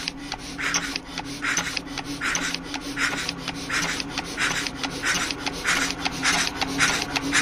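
Diesel fuel injector nozzle, held outside the engine on its fuel line, spraying fuel in a short hiss about every 0.8 s as the injection pump delivers, with a steady low hum underneath. The nozzle is no longer jammed and now sprays well.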